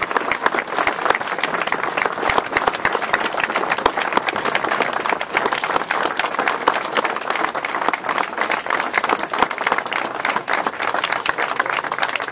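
A crowd applauding: a dense, steady patter of hand claps.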